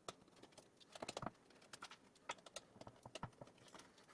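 Faint, scattered clicks and taps of a screwdriver backing out the small screws that hold a PC power-supply fan, with a brief cluster of clicks about a second in.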